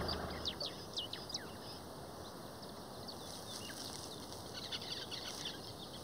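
Small birds chirping: short, quick downward-slurred calls, a cluster in the first second and a half and scattered ones later, over a faint hiss of bush ambience. The low hum of an idling vehicle engine fades out in the first half second.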